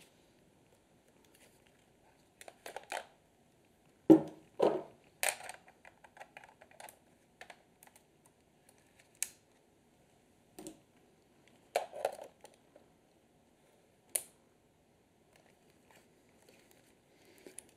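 Scattered clicks and short metal scrapes as a Helios 44-2 lens and an extension tube are unscrewed and fitted onto a Canon EOS 2000D DSLR, twisting on the M42 thread and bayonet mount. Several clusters of clicks come with quiet gaps between them.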